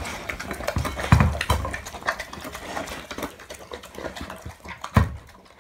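A dog eating from a stainless steel bowl: quick, irregular crunching and clinking of food and metal, with a few louder knocks about a second in and near the end.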